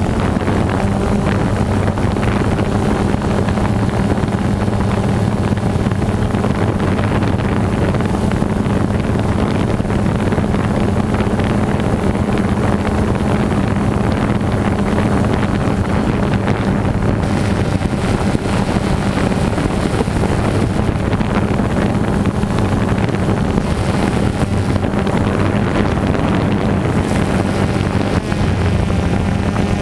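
FPV quadcopter's electric motors and propellers running at a steady hum, heard from the onboard camera, with wind rushing over the microphone.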